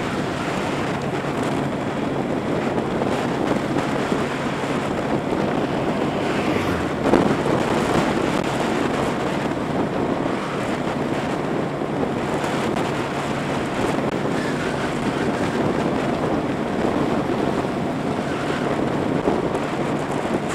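Motorbike riding at a steady speed: wind buffeting the microphone over a steady engine hum. There is a brief louder rush about seven seconds in.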